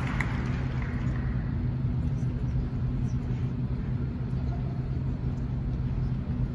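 Steady low hum and rumble of a large arena hall, with the last scattered claps and crowd murmur dying away about a second in.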